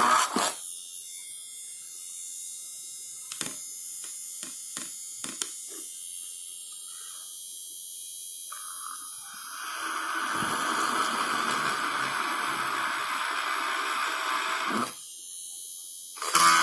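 Homemade mini drill's RS-555 DC motor running with a steady whirring hiss. It cuts out about half a second in and a few sharp clicks follow. It starts again about eight seconds in, runs for about six seconds, stops, and starts once more near the end.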